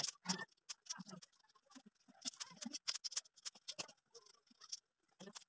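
Irregular small metallic clicks and taps as bolts and nuts are fitted into the punched holes of steel angle bars on a shoe rack frame.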